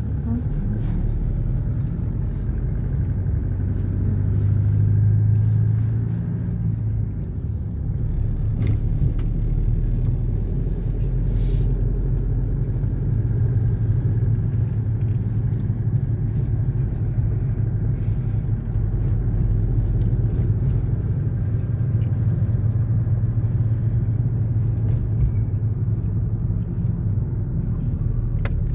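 Car engine and road noise heard from inside the cabin while driving, a steady low hum that swells briefly about five seconds in.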